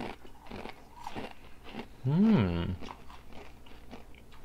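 Two people crunching and chewing Doritos Flamin' Hot Cool Ranch tortilla chips, with crisp crunches throughout. About two seconds in, one of them gives a short hummed 'mmm' that rises and then falls in pitch.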